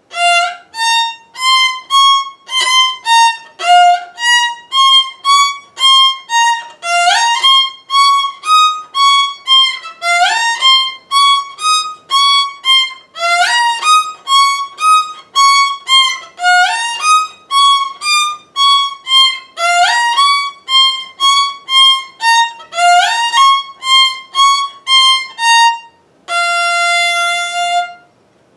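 Solo violin playing a low fourth-position etude in short, separate bow strokes, about two notes a second, with quick upward slides now and then, ending on a long held note.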